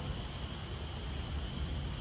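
Heavy rain falling steadily: an even hiss with a low, unsteady rumble beneath it and a constant high-pitched drone above it.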